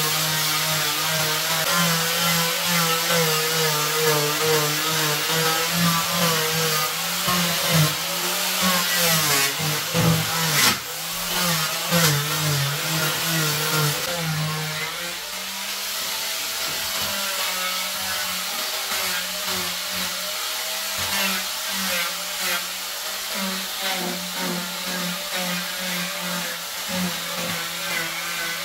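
Handheld electric sander running on wooden boards: a steady motor whine whose pitch wavers as the tool is pushed along, its note dropping and changing about halfway through.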